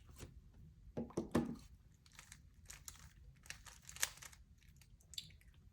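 3x3 Rubik's Cube being handled and turned: light, irregular plastic clicks and rattles, with a couple of louder clicks about a second in.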